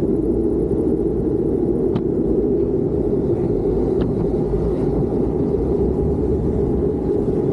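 Street luge wheels rolling over asphalt at speed: a steady rumble, with two faint ticks about two and four seconds in.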